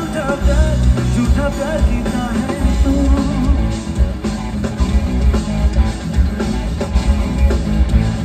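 Live fusion rock band playing a Hindi film-song cover through a stage PA: drum kit, bass and electric guitars, with a sung melody over the first few seconds before the band carries on instrumentally.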